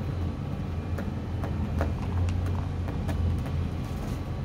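Scattered light clicks and taps of fingers picking food out of a plastic bowl, over a steady low rumble.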